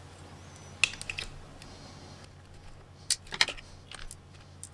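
A few light plastic clicks and rattles as wires and small connectors on an RC crawler chassis are handled and pulled free, spaced irregularly with the sharpest ones about three seconds in.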